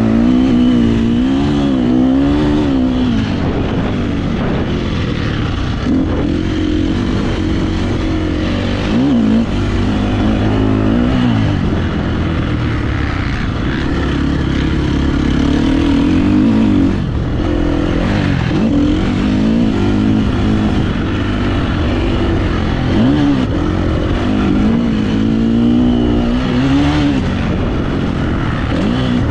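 KTM 350 SX-F four-stroke motocross bike engine under hard riding, its revs climbing and dropping again and again as the throttle is worked and gears change around the track, with wind rushing over the microphone.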